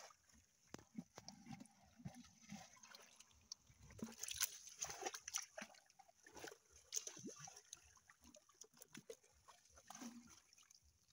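Faint wet splashing and sloshing of small fish wriggling in a little water in a plastic bucket, with scattered soft slaps and clicks, busiest from about four to seven seconds in.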